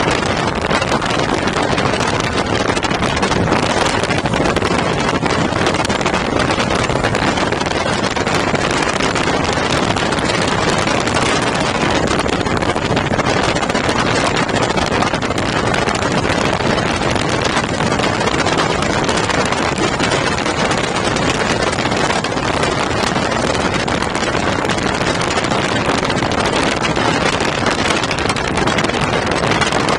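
Small aircraft engine and propeller running steadily at low power as the plane rolls and taxis on grass, mixed with wind buffeting the microphone.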